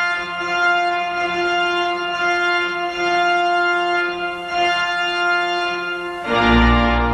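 Organ music playing long held chords; about six seconds in a louder, fuller chord comes in with deep bass notes.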